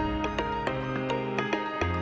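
Background music: gentle instrumental notes.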